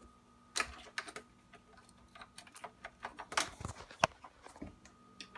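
Scattered light clicks and knocks, about half a dozen, the sharpest about four seconds in, from handling a power cord and plug on a stone countertop while plugging in an Aerogarden.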